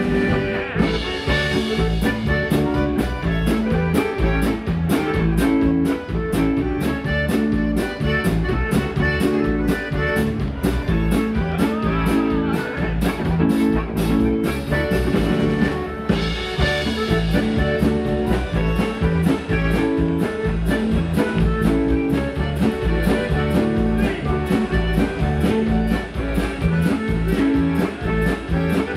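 Live polka band playing: accordion, electric guitar, keyboard and drum kit over a steady beat, with cymbal crashes about a second in and again about halfway through.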